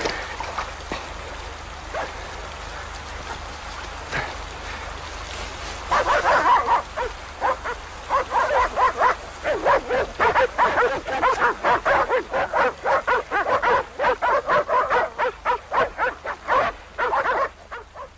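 A dog barking fast and without let-up, several barks a second. It starts about six seconds in and stops shortly before the end.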